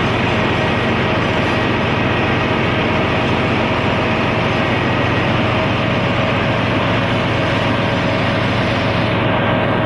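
Ship's engine room machinery noise: the diesel generator sets and ventilation running as a loud, steady drone with a faint whine.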